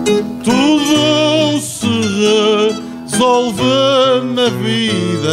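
A man singing long, wavering held notes of an Azorean cantoria in two phrases with a short break between, over a plucked accompaniment of viola da terra and acoustic guitar.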